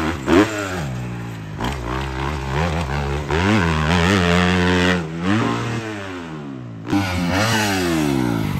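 Dirt bike engine revving as it is ridden, its pitch repeatedly rising under throttle and falling off again every second or two.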